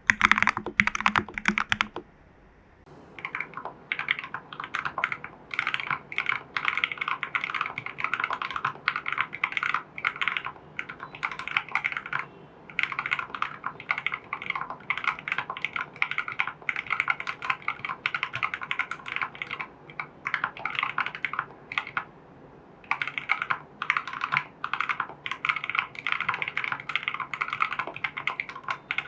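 Steady typing on a mechanical keyboard: a TU40 plastic-case kit with lubed Jelly Black switches, case and PCB foam, a tape mod and XMI Cyrillic Red keycaps. The keystrokes come in quick runs, with short pauses about two seconds in, near the middle and a little later.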